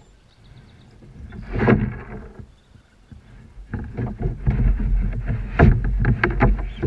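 Water splashing and knocking as a hooked largemouth bass thrashes beside a kayak: one loud burst about a second and a half in, then a run of sharp, irregular splashes and knocks through the second half.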